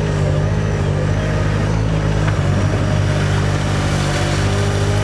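Engine of a Weedoo aquatic weed-harvesting workboat running steadily while its front-end loader raises a bucket load of cut weeds, with a brief change in the engine note a little over two seconds in.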